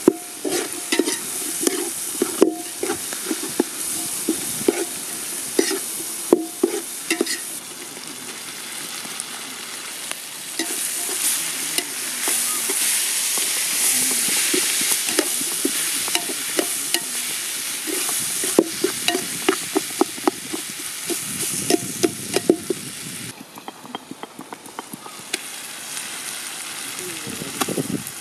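Sliced onions and tomato pieces frying and sizzling in oil in a large metal pot, with a metal ladle scraping and knocking against the pot as they are stirred. The sizzle swells in the middle and drops away near the end.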